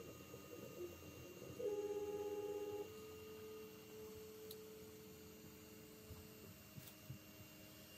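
3D printer toolchanger's stepper motors whining with steady tones as the carriage travels to dock a tool. The whine is loudest for about a second around two seconds in, then settles to a lower single tone that stops about six and a half seconds in.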